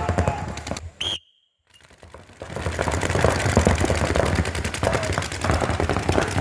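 Paintball markers firing in rapid, overlapping volleys, several guns shooting at once. About a second in, the firing breaks off for a short high tone and a brief gap of silence, then picks up again.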